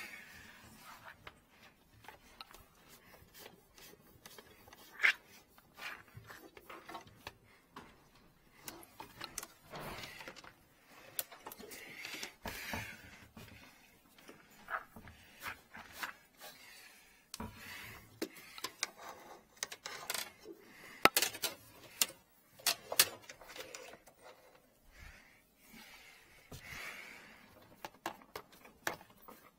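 Irregular clicks, knocks and scraping as gloved hands feed and work a thin cable in a sink drain pipe, with a few sharper knocks standing out.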